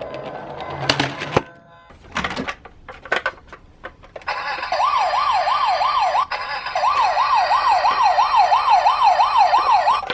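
A few sharp clicks and knocks, then, about four seconds in, a toy police car's electronic siren starts: a fast up-and-down wail, about four sweeps a second, with a short break partway through.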